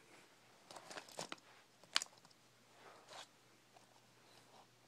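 Faint handling noise: a few light clicks and rustles as small die-cast models are moved about. The sharpest click comes about two seconds in.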